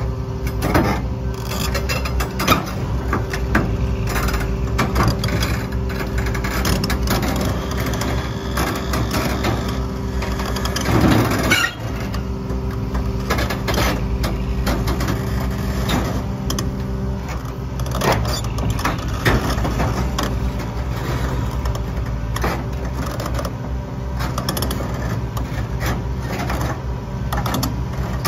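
Link-Belt 470X crawler excavator's diesel engine running steadily, with frequent metallic clanks and creaks from the machine and a louder rushing burst about eleven seconds in.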